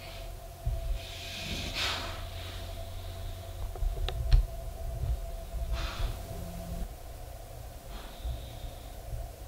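Weimaraner in labour breathing hard through her nose in three loud, noisy breaths a few seconds apart, with low thumps from her shifting on the bedding, the loudest about four seconds in.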